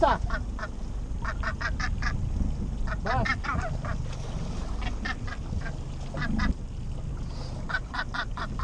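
Northern gannet hooked by the foot on a trolling lure, calling in bursts of harsh, rapid croaks. A steady low rush of wind and sea lies underneath.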